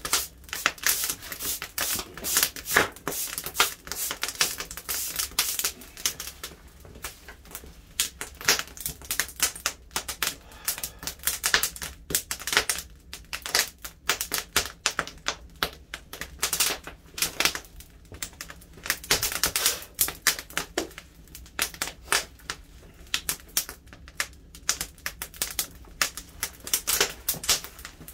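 Wood fire crackling and popping, with irregular sharp snaps coming thick and fast.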